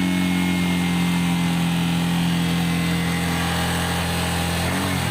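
Yamaha R15's single-cylinder engine held at steady revs, around 5,500 rpm, with the metallic, foil-like rattle from the rear footpegs gone now that the pegs' retaining pins are refitted. Near the end the revs begin to waver.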